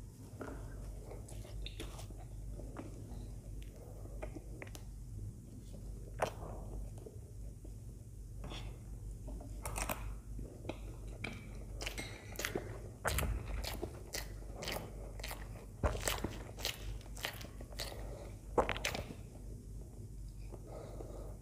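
Close-miked chewing of soft idli dipped in sambar: a run of sharp wet mouth clicks and smacks, thickest in the second half.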